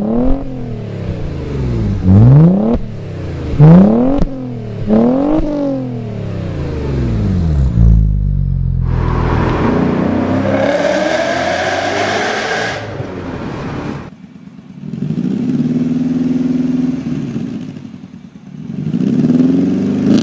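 Audi B5 S4's twin-turbo V6 through a Topspeed exhaust, blipped hard several times, each rev shooting up and falling straight back. Then a BMW E39 M5's V8 pulling under acceleration, heard from inside the cabin, and finally a Honda Prelude's exhaust idling and revving up near the end.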